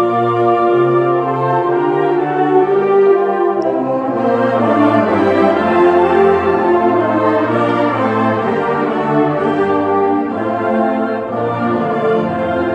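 A school concert band of clarinets, saxophones and brass playing full, sustained chords that shift every few seconds over a moving bass line.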